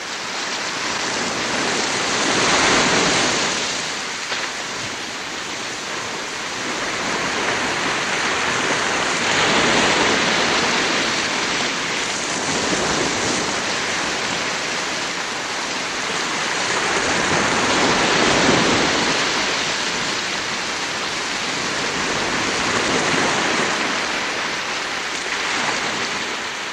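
Rushing water noise, swelling and fading about four times like waves breaking.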